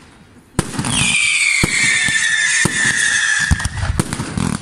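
Fireworks: a sharp bang about half a second in, then a loud high whistle that lasts about three seconds and slides slowly down in pitch, with several more sharp bangs.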